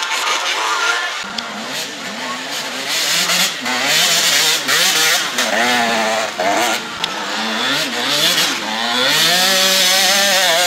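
Motocross bike engines revving hard on a muddy track, the pitch climbing and dropping again and again with throttle and gear changes. Near the end comes a longer, steadier high rev.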